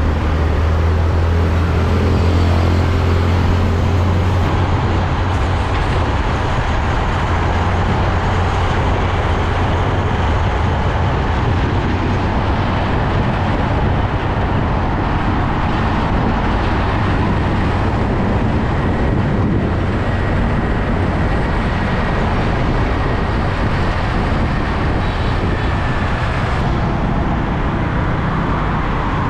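Road traffic with heavy trucks going by: a low, steady engine drone, strongest in the first few seconds, over continuous tyre and road noise.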